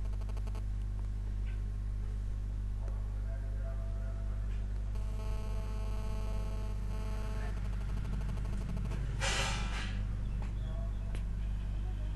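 Steady low electrical hum on the recording, with a faint held tone from about five to seven and a half seconds. About nine seconds in, a short breathy burst of noise at the microphone is the loudest sound.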